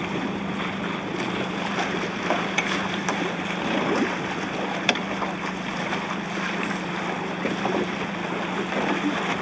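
Steady wind and water noise on choppy open water, heard from a boat, with a low steady hum underneath.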